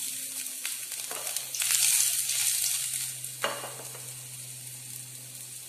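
Chopped garlic sizzling in hot oil in a stainless steel pan, the hiss swelling about a second and a half in, then dying down.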